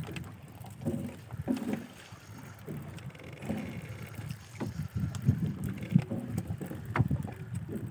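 Water and hull noise on a small fishing boat at sea: irregular low knocks and swells, with a few sharp clicks near the end.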